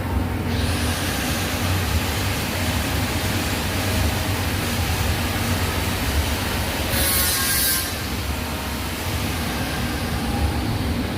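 TIG welding arc on stainless steel, hissing steadily from about half a second in, with a brief louder burst of hiss about seven seconds in. A steady low hum runs underneath.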